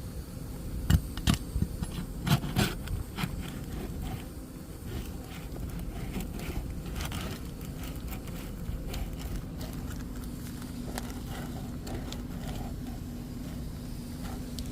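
Roof shingles being pried and scraped loose from their seal for a repairability test: a few sharp knocks in the first three seconds, then steady scraping and crackling with scattered light clicks.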